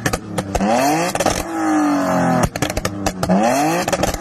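BMW E46 coupe's modified, loud exhaust as the engine is revved twice while standing, each rev a quick rise in pitch followed by a slow fall, with sharp pops and crackles between the revs.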